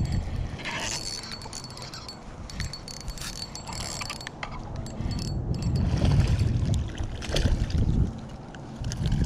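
Spinning fishing reel being handled and cranked: scattered light clicks with a thin steady whine for a few seconds. Low rumbling on the microphone in the second half.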